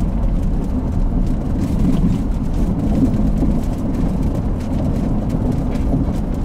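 Car driving on a gravel dirt road, heard from inside the cabin: a steady low rumble of tyres and engine, with faint scattered ticks.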